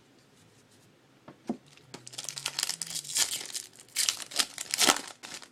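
Baseball card pack wrapper being torn open and crinkled, in dense crackling from about two seconds in until near the end, after a single click.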